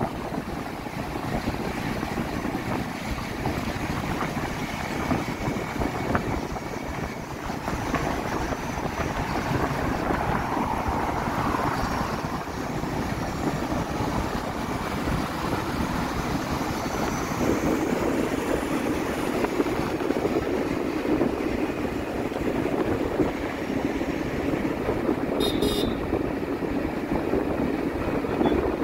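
Steady rush of wind on the microphone over the road noise of a moving vehicle at speed. A brief high-pitched blip sounds near the end.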